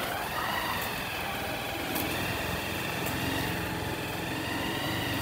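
A vehicle engine running steadily, with a high whine that wavers slowly up and down in pitch.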